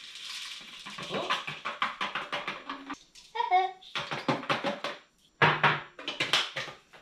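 Scent booster beads poured from a plastic bottle into a glass mason jar: runs of fast rattling clicks as the beads hit the glass, in several pours, loudest about five seconds in. A short pitched sound comes a little past three seconds.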